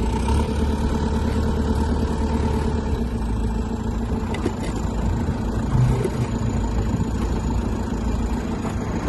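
A vehicle engine running steadily, a dense low rumble with a few steady hum tones through it.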